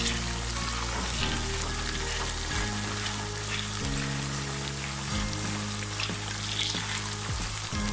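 Potato slices deep-frying in hot oil in a wok: a steady sizzle while a slotted spatula stirs them.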